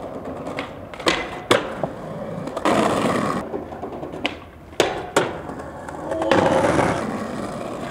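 Skateboard on concrete: several sharp clacks of the board's tail and deck hitting the ground, with stretches of hard wheels rolling over the concrete.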